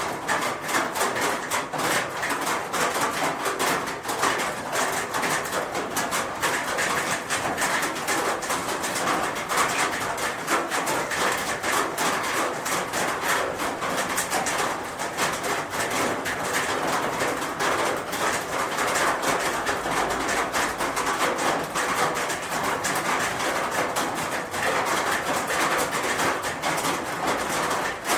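Rain falling steadily on a roof: a dense, even patter of countless drops.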